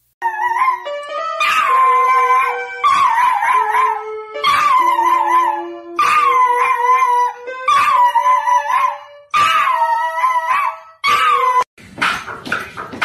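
A small dog howling along to a toy electronic keyboard it presses with its paws: held keyboard notes under a wavering howl, in about seven short phrases with brief gaps. Near the end it cuts to other dog vocalizing.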